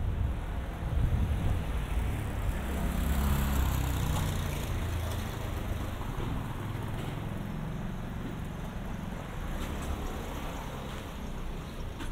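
Road traffic: a motor vehicle passes close by over the first few seconds, its rumble and tyre hiss swelling and then fading into a steadier, quieter traffic hum.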